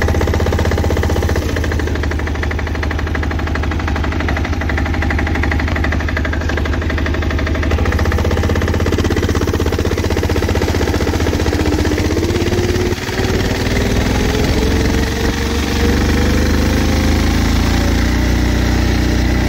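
Yanmar L40 4 hp single-cylinder air-cooled diesel running with a fast, steady knocking clatter while driving the converted ATV. Partway through, a whine that rises in pitch joins it, and the level dips briefly near the middle.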